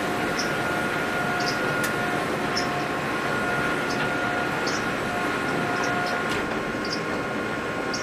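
Sawmill machinery running steadily, with a constant whine and a short high squeak about once a second.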